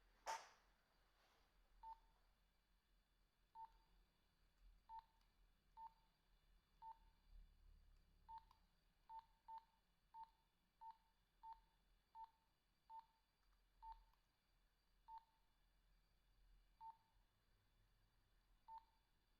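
Faint Nokia 2110i keypad tones: a string of short single beeps, all at the same pitch, as its buttons are pressed at irregular intervals of about half a second to two seconds. A brief knock comes just after the start.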